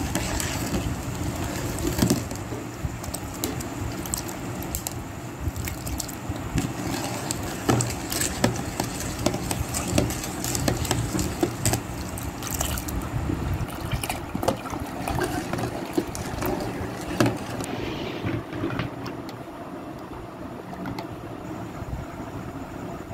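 A steel ladle stirring sattu and water in a steel pot: the liquid swishes, with frequent sharp clinks of the ladle against the pot.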